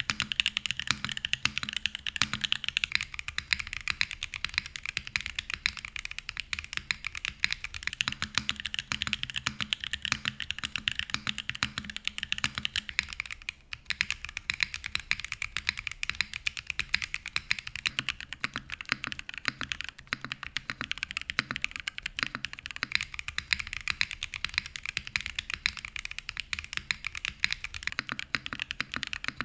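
Mechanical keyboard fitted with tactile switches on a copper plate being typed on steadily: a fast, continuous stream of key clacks, with a brief pause about 14 seconds in.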